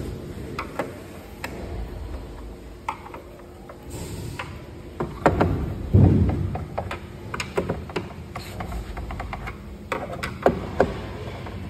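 Treadmill's plastic front cover knocking as it is fitted in place, then a hand screwdriver clicking and scraping as the cover's screws are re-tightened. There are heavier thumps about halfway through and quick runs of small ticks after them.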